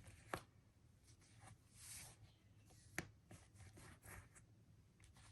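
Faint rustling of comic books and paper being handled and sorted, with a few light taps and clicks as the books are set down.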